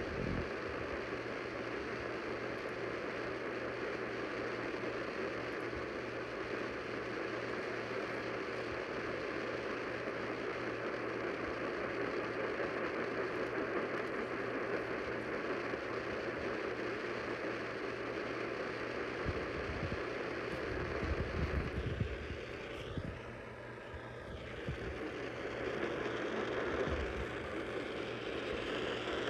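Static hiss from a weakly received AM radio station, steady with a low hum under it, and a brief warbling whistle of interference about 22 seconds in.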